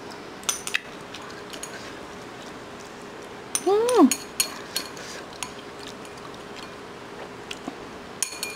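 Chopsticks clicking and scraping against a bowl while the last of the instant noodles are picked up, in short scattered taps. About four seconds in comes a brief rising-and-falling voiced sound, the loudest moment.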